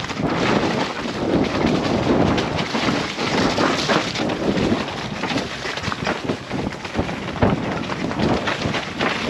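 Sunn Kern enduro mountain bike descending a wet dirt and leaf-covered trail at speed: tyres rolling over dirt and leaves, with frequent clatter and knocks from the bike over bumps and roots, under steady wind noise on the microphone.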